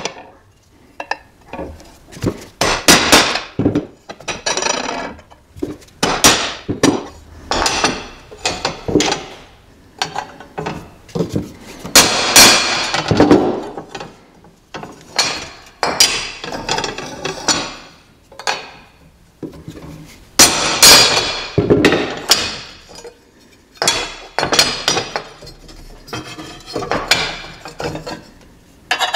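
Hammer striking a steel punch to drive the ground-down rivets out of a stock BMW K75 brake rotor. Many sharp metal strikes with a short ring after each come in irregular runs, with brief pauses between them.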